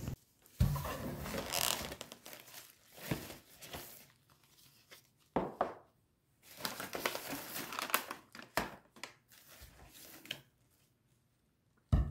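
A thin shopping bag rustling and crinkling in irregular bursts as snacks are taken out of it, with a few light knocks as items are set down on the table.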